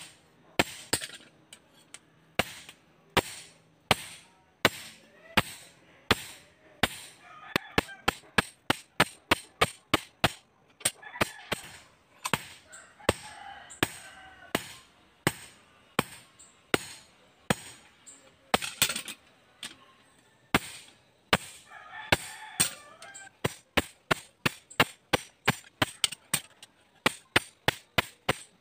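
Blacksmith's hand hammer striking a red-hot blade on an anvil while forging: a long run of sharp metallic strikes, spaced out at first, then quickening to about three or four a second near the end. Fowl call at a few moments in between.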